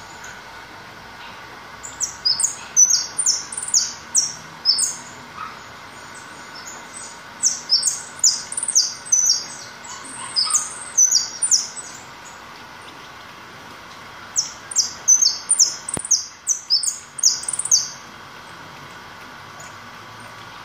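Caged white-mutation goldfinch singing in three bouts of quick, high, sharp notes, each bout a few seconds long with pauses between.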